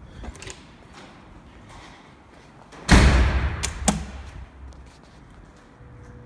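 A metal-framed glass door thuds shut about three seconds in, followed by a couple of sharp clicks. Near the end a faint steady hum starts.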